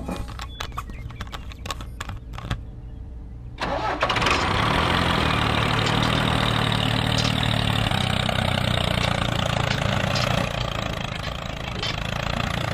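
A few sharp clicks, then about four seconds in an engine starts and runs steadily.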